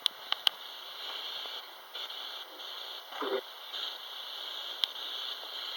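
Spirit box, a radio that scans rapidly through stations, sweeping: a choppy hiss of static that jumps in level every fraction of a second. There are a few sharp clicks near the start and about five seconds in, and a brief voice-like fragment about three seconds in.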